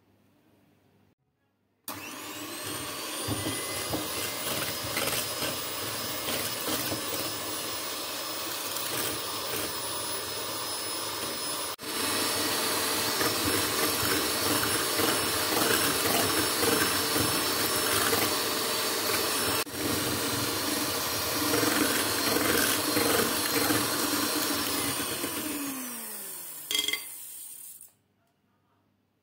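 Electric hand mixer whipping a milk-and-powder mixture into stiff cream in a glass bowl. The motor spins up with a rising whine about two seconds in and runs steadily. It gets louder just before the midpoint, then winds down with a falling pitch and stops near the end.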